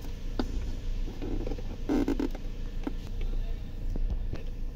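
Light plastic clicks, scrapes and rustles from a wiring connector being pushed by hand onto an airbag control module, with a louder knock about two seconds in. The connector is not yet seating and locking.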